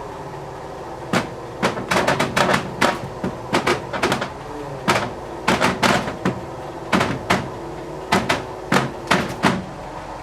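A shell being lifted and forced into a tight fit, cracking and creaking under the strain in an irregular run of about twenty sharp cracks, starting about a second in, over a steady hum.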